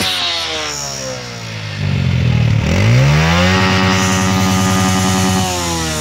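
Quad (ATV) engine running close by: its revs drop in the first second, climb sharply about two seconds in, hold steady, and fall off again near the end.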